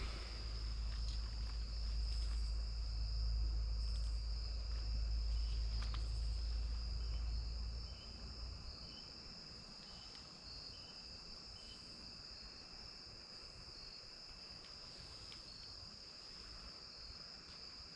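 Insects trilling steadily in a high, continuous chorus, with a fainter pulsing call underneath. A low rumble runs under it and stops about eight seconds in.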